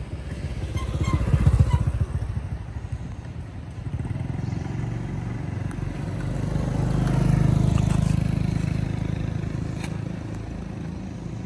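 Motor vehicles passing by with a low engine rumble. The first is loudest about a second and a half in; the second swells more slowly, peaks around seven to eight seconds in, and fades.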